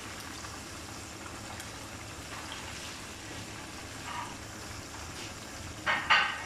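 Hot oil sizzling and bubbling steadily in a karahi around a batch of fried chicken wings being lifted out on a wire strainer. A couple of short, louder sounds come just before the end.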